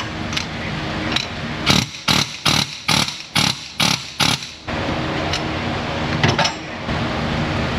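About seven short bursts of a pneumatic fan clutch tool hammering at the fan clutch nut, evenly spaced a little under three a second, stopping abruptly. The nut does not come loose: it is a left-hand thread.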